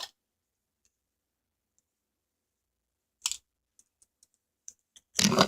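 Scattered clicks and knocks from a measuring spoon and borax container being handled while borax powder is measured out, with a louder knock about three seconds in and a short clatter near the end.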